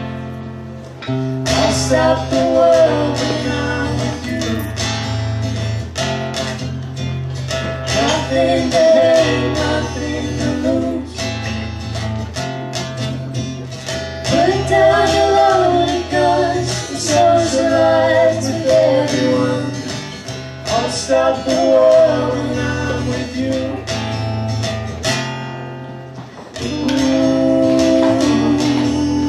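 Live acoustic duo: an acoustic guitar strummed under a singing voice in phrases, with brief dips in the playing about a second in and again near the end.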